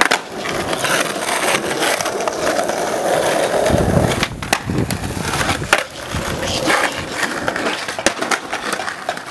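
Skateboard wheels rolling on asphalt, then a string of sharp clacks from about four seconds in as the board is popped off its tail and landed.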